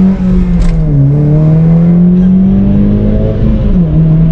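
Honda Civic Si's four-cylinder VTEC engine at full throttle through a straight-piped exhaust with the muffler cut off, heard from inside the cabin. The revs fall at an upshift at the start, climb steadily for about two and a half seconds, then drop again at a second upshift near the end.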